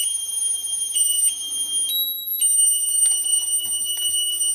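Eachine EX4 drone beeping as it powers up: steady high-pitched electronic tones that step from pitch to pitch, the last held for about two seconds. A few light handling clicks come near the end.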